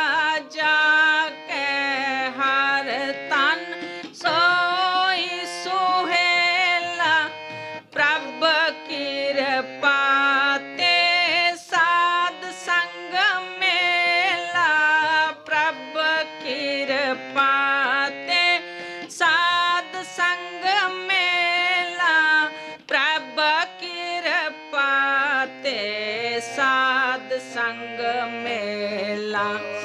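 Harmonium playing a kirtan melody in held notes that step from pitch to pitch, with tabla beating a steady accompanying rhythm.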